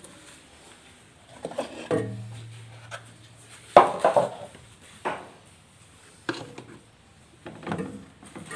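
Knocks and clatter of hard objects being handled during refrigerator repair work, the loudest knock about four seconds in, with a brief low hum for a couple of seconds just before it.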